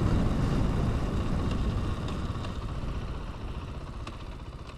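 Supermoto-style dirt bike being ridden along a road: engine and wind noise on the rider's camera microphone, fading steadily, with a few faint ticks.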